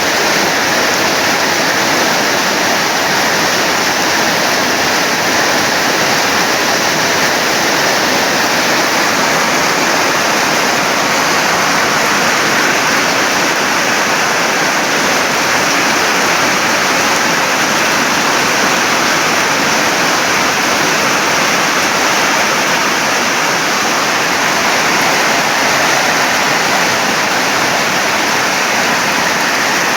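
Heavy storm rain pouring down in a steady, loud hiss.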